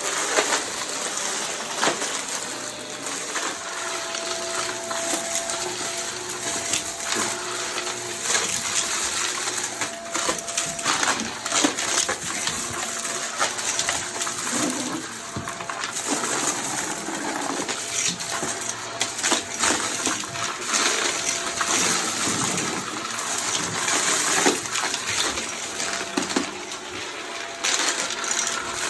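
Vacuum cleaner running fast over a floor, its steady hiss broken by constant crackling and rattling clicks of debris being sucked up.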